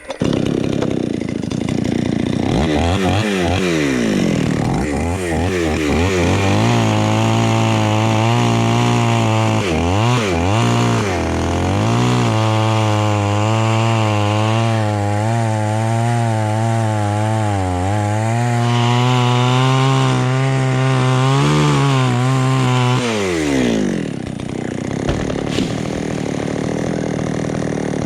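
Chainsaw revving up in a few bursts, then running at high speed while cutting into jackfruit wood, its pitch wavering with the load, before dropping back to idle a little before the end.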